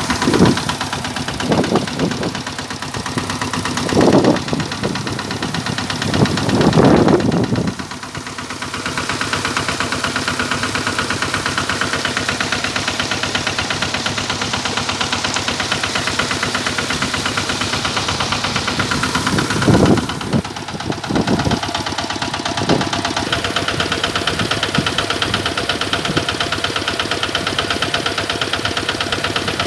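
Kubota engine running steadily with a fast, even chugging as it drives an irrigation water pump. A few louder, irregular rushes come through in the first eight seconds and again around twenty seconds in.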